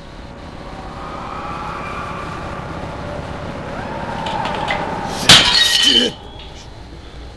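Faint wavering tones build for a few seconds, then a sudden loud crash of something breaking comes about five seconds in, lasting under a second with a short high ringing before it cuts off.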